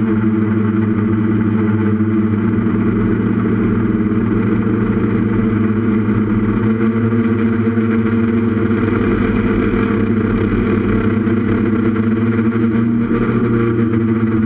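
Brushless Tiger motors and propellers of a 6S FPV quadcopter running at a steady cruise, a constant buzzing hum made of several fixed pitches, heard from the aircraft itself.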